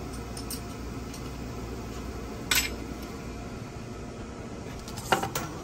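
Hand tools clinking against metal as they are handled: one short sharp clink about halfway through and a quick cluster of two or three clinks near the end, the loudest sound. A steady low hum runs underneath.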